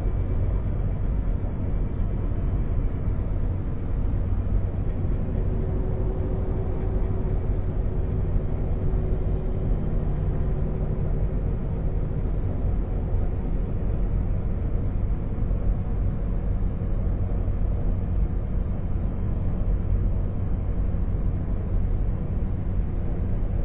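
A steady low engine hum with a few even low tones.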